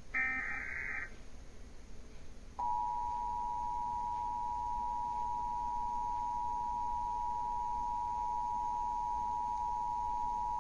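Emergency Alert System required monthly test: a short burst of SAME header data tones, then, about a second and a half later, the EAS two-tone attention signal (853 and 960 Hz sounded together) held steady for about eight seconds before cutting off.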